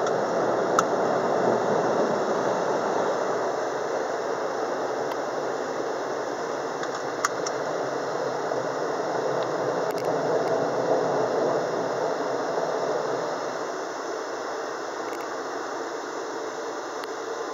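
Automatic car wash air dryers blowing, a steady rushing of air heard from inside the car, easing off a little near the end, with a few faint ticks.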